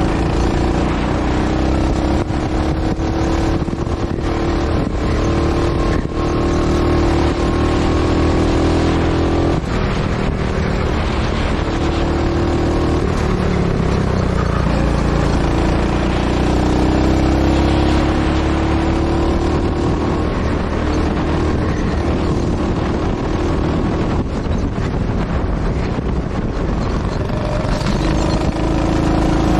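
Go-kart engine running hard throughout, its pitch climbing and dropping several times as the kart accelerates and slows through the track.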